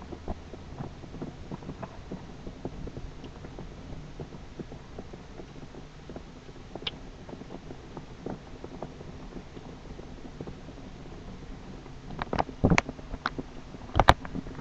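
Distant thunder rumbling low under a steady hum, with scattered light clicks and a cluster of sharp knocks about twelve seconds in and again near the end.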